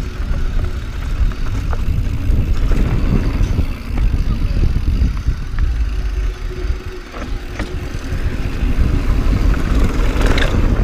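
A mountain bike descending fast over rough desert trail: wind buffeting the microphone and tyres running over dirt and rock, with scattered knocks and rattles from the bike.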